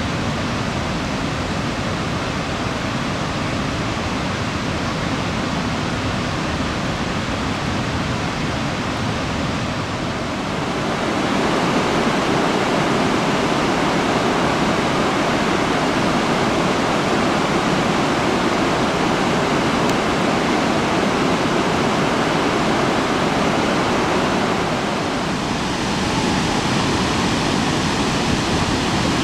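Rushing water of the Chaudière River falls and rapids, a steady, even rush. It grows louder about a third of the way in, dips briefly near the end, then comes back up.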